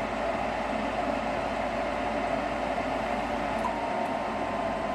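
Furnace combustion blower (inducer motor) running steadily with an even rush of air, sounding normal now that the water trapped in its housing has been drained. A thin steady whine joins about three-quarters of the way through.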